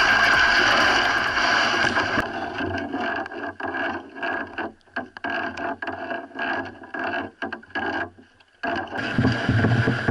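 Water rushing along a kayak's hull as it is paddled, then the hull scraping and knocking in irregular strokes as it is hauled over sand. Near the end, surf washes against the bow.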